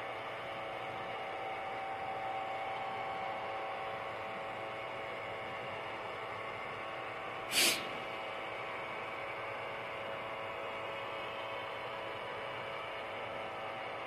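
iRobot Roomba i3 robot vacuum driving, its motors giving a steady hum and whir with a few constant whining tones, heard from on top of the robot. A single short knock sounds about seven and a half seconds in.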